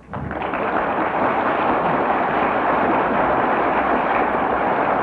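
A crowd applauding, breaking out just after the start and holding steady.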